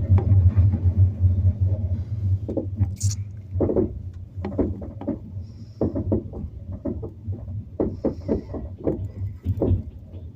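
Moving passenger train carriage heard from inside: a low running rumble with many irregular knocks and clicks from the wheels on the track, growing gradually quieter.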